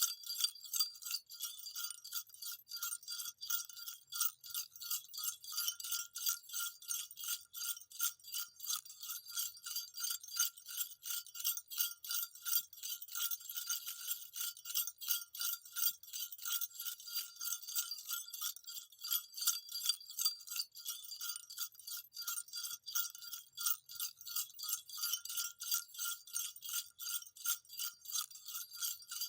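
Small jingle bells shaken continuously: a rapid, uneven run of high-pitched metallic jingles over a steady ringing note.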